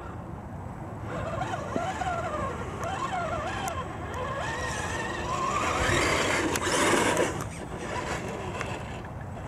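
Electric motor and gear whine of a Redcat Gen 8 RC crawler, rising and falling in pitch as the throttle is worked while it climbs through wet mud. About six seconds in comes a louder rush of noise lasting a second or two.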